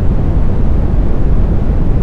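Brown noise: a steady, deep rushing hiss with most of its weight in the bass, without tones, rhythm or change.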